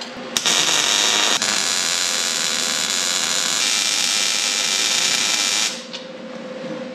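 Electric welder laying a weld on steel plate: a steady hiss that starts about half a second in and cuts off near six seconds. A faint hum carries on under it after the weld stops.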